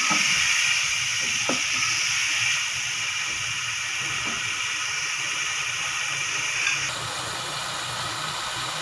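Spiced onion-tomato masala sizzling and simmering in a pan just after a splash of water was added: a steady hiss that eases a little about seven seconds in, with a light tap about a second and a half in.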